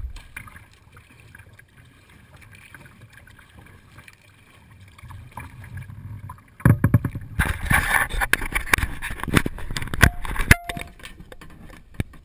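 Kayak paddling close to the bow deck: soft water lapping and wind rumble at first, then from about six and a half seconds in a loud run of crackling splashes and knocks as paddle water splashes onto the deck, easing off near the end.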